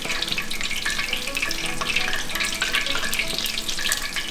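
Battered frog legs frying in hot oil in a pan: a steady sizzle with many small pops, starting up louder right at the beginning.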